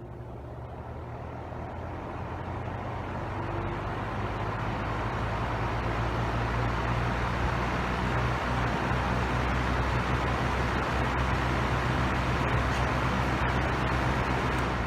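The shaded-pole motor of a 1955 Signal 12-2100 box fan starting up on high speed. A low electric hum runs under a rush of air that builds over the first seven or eight seconds as the blades spin up, then holds steady at full speed.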